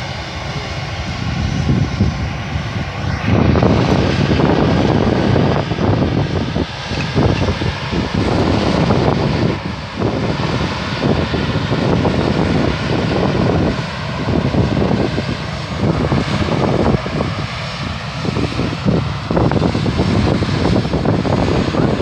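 Aer Lingus Airbus jet airliner's engines running as it taxis past at close range: a loud, continuous rumble with faint whining engine tones above it, growing heavier about three seconds in.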